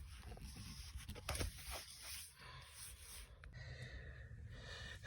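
Quiet room tone with a few faint clicks, about a second and a half to two and a half seconds in.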